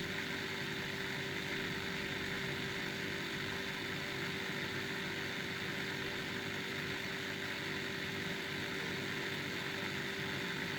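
FM radio giving a steady hiss with a few faint steady hum tones underneath.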